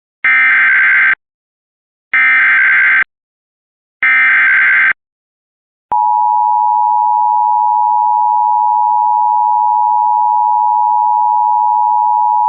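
Emergency Alert System SAME header: three short bursts of warbling digital data tones about two seconds apart, then a steady attention tone that starts about six seconds in. The sequence signals the start of a new emergency alert, here a severe thunderstorm warning.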